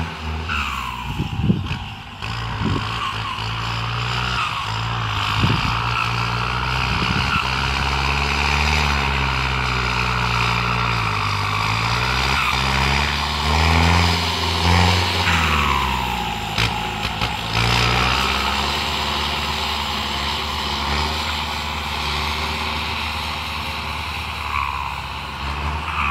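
Kubota tractor's diesel engine with a modified exhaust pipe running under load, its pitch dipping and rising several times as the revs change. A few sharp knocks sound near the start.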